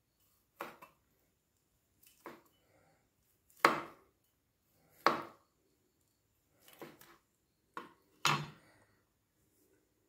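Cleaver chopping boiled cow skin (ponmo) on a plastic cutting board: about eight sharp knocks of the blade against the board, spaced irregularly a second or so apart, some of them louder.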